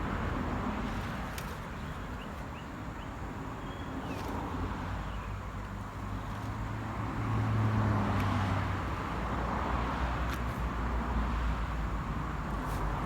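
Low engine hum over a steady haze like road noise, growing louder and stronger about seven to eight seconds in, then easing off.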